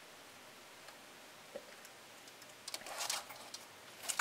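Quiet room tone, then a short cluster of light clicks and rustling about three seconds in, with a few more clicks near the end, from a hand-held plastic casing being handled.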